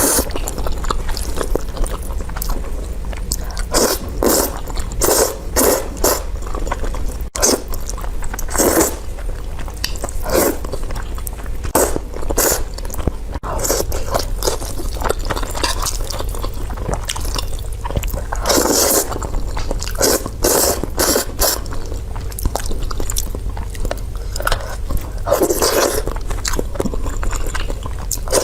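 Close-miked eating: irregular bites and chewing with wet smacking and crunching, in short sharp clicks, with a couple of longer, fuller mouthfuls near the middle and near the end.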